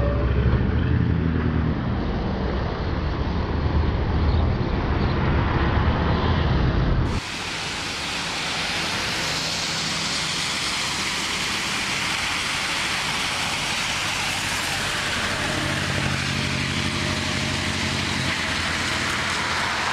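LiAZ-677M city bus's ZIL V8 petrol engine running close by, a loud low engine note. About seven seconds in the sound switches abruptly to a steady hiss of street noise, with the bus's engine faint underneath.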